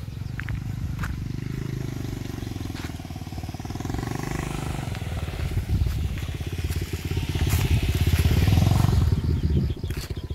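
Small motorcycle engine running steadily, growing louder about three-quarters of the way through and then easing off near the end.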